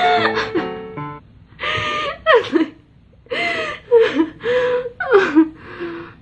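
A young woman laughing in a string of breathy bursts. The last notes of piano music stop about a second in.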